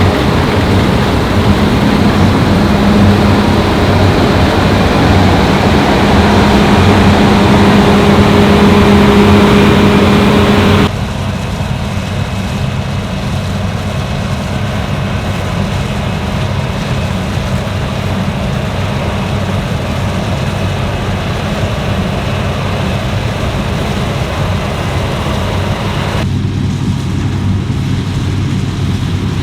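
Fendt Ideal 10T combine harvester running steadily under load while harvesting wheat, a continuous engine and machinery hum. About eleven seconds in the sound drops abruptly and turns duller, and near the end it becomes duller still.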